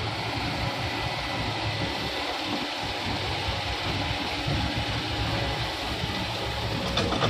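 Diesel engine of heavy earth-moving machinery (excavator or dump truck) running steadily: a low hum with a hiss over it and no marked changes in pitch.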